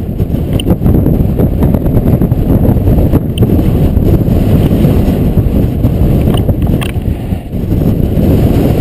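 Wind buffeting the camera microphone over the rumble of a dog-pulled scooter rolling fast down a rough dirt track, a steady heavy low rushing with a few faint clicks and rattles.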